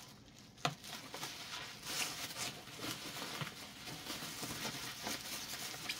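Bubble wrap and plastic packaging sheeting rustling and crinkling as it is pulled and cut away from a vacuum cleaner, with a sharp click a little over half a second in.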